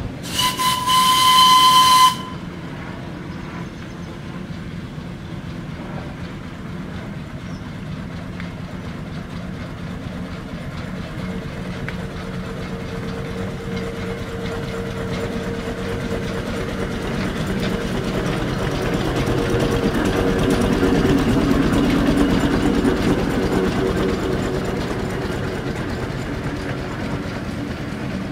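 A Marshall steam traction engine sounds a single blast on its steam whistle, about two seconds long, then runs along the road towards and past, its running growing louder to a peak a little past the middle and fading as it moves away.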